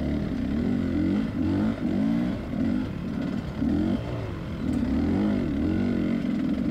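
Dirt bike engine revving up and down over and over in short throttle blips, about one a second, as the bike is ridden slowly over rough trail.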